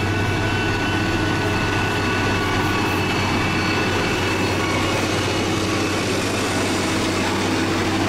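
SANY motor grader's diesel engine running steadily under load.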